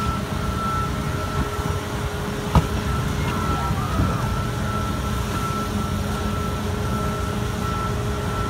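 Heavy diesel demolition machinery running with a steady low rumble, while a backup alarm beeps about once a second. A single sharp knock sounds about two and a half seconds in.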